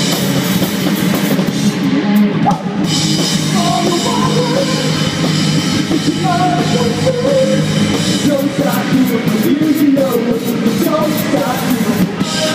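Live rock band playing loud: a drum kit and electric guitars.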